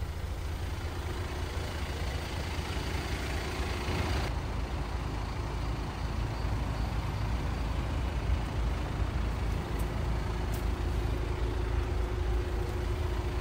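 Jeep Wrangler's MultiJet II diesel engine idling: a steady low rumble that runs on unchanged, with a faint steady hum above it for part of the time.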